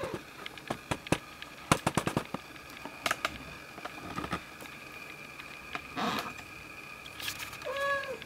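A run of sharp clicks, taps and rustles, thickest in the first half, as cats shift about close to the microphone, then a short mew from a newborn kitten just before the end.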